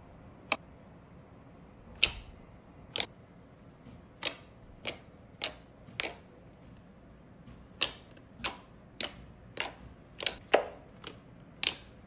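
Glossy slime being pressed and pulled by hand, giving sharp pops and clicks at irregular intervals, roughly one or two a second.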